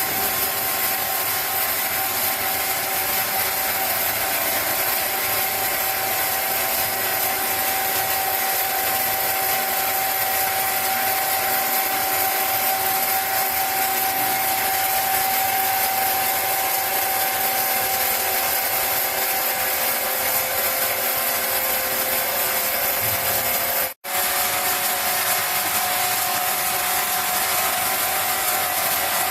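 Large sawmill saw running and cutting wood: a steady mechanical grinding noise with a steady whine over it, dropping out for an instant about three-quarters of the way through.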